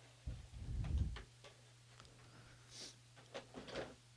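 Clear plastic clamshell packaging being handled as a handheld recorder is lifted out of its tray: a soft rustle of about a second near the start, then a few small plastic clicks and knocks.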